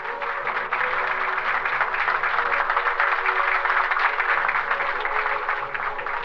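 Crowd applauding, the clapping swelling in shortly after the start and thinning near the end, over background music.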